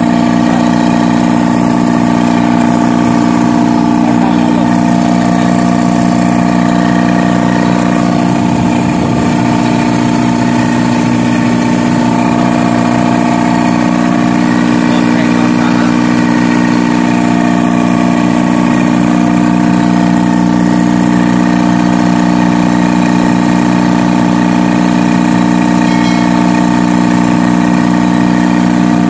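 Freshly reconditioned Isuzu four-cylinder diesel engine of a Denyo generator set running steadily at constant speed, not long after being started.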